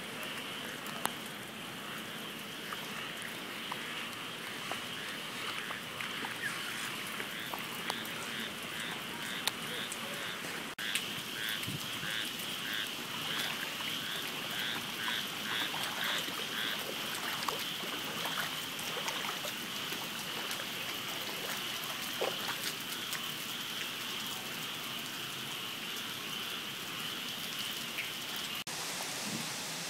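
Steady rain falling on floodwater and wet ground, with frogs calling throughout: a high steady chorus, plus a run of quick, evenly repeated calls in the middle.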